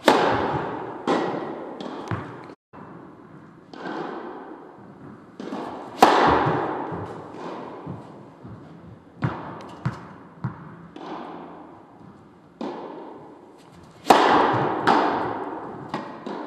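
Tennis ball being hit back and forth with rackets and bouncing on the court, a sharp crack about once a second, each one echoing and dying away. The hardest hits come at the start, about six seconds in and near the end.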